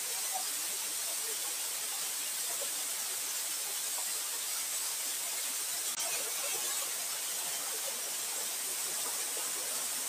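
Small waterfall pouring down a rock face: a steady rushing hiss of falling water.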